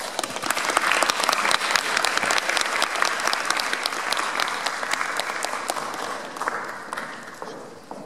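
Audience applauding, building up within the first second and dying away near the end.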